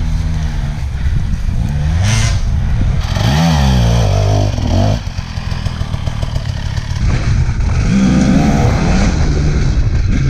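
Dirt bike engine running at idle while the bike lies dropped on the trail, then revved up and down twice as it is lifted and ridden off.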